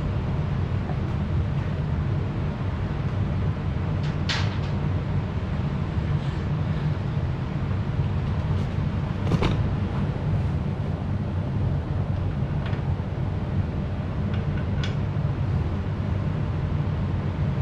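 A few scattered metallic clinks and knocks, the loudest about four and nine seconds in, as steel three-point hitch parts and bolts are handled and fitted, over a steady low hum.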